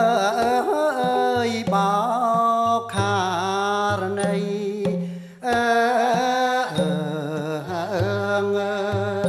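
Cambodian traditional song: a woman singing long, wavering, ornamented phrases over low held instrumental tones, with a short break between phrases about five seconds in.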